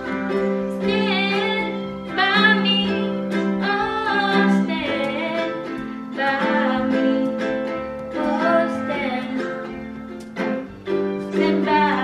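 A woman singing in short phrases while playing chords on a ukulele.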